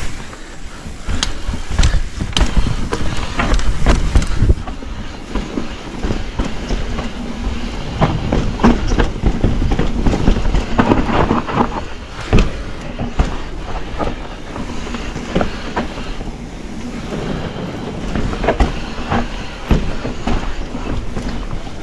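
Enduro mountain bike descending a rough trail: a continuous rattling clatter of the bike over rocks and roots, with frequent sharp knocks over a low rumble.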